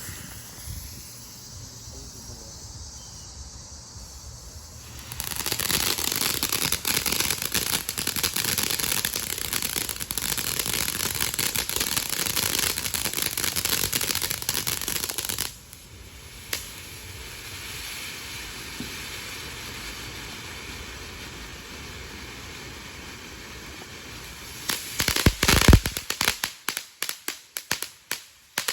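Man Overboard consumer firework going off: a soft hiss for the first few seconds, then a loud, dense crackling spray for about ten seconds. It falls back to a softer hiss, and near the end comes a quick string of sharp cracks.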